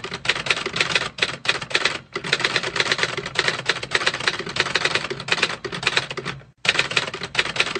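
Typewriter sound effect: a fast run of key strikes clacking, with a short pause about two seconds in and another near the end.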